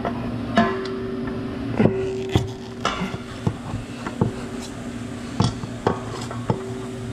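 Hand socket ratchet working a bolt on the exhaust center section: a series of sharp metallic clicks and clinks, roughly two a second, irregularly spaced, over a steady low hum.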